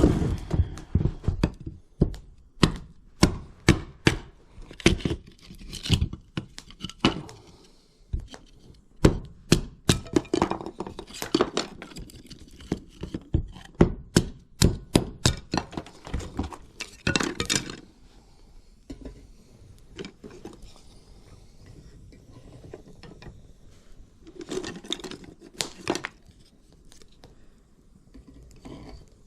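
A long series of sharp knocks and clinks from hard objects being handled and set down, coming in quick runs of about two a second for most of the first eighteen seconds, then a short cluster again later on.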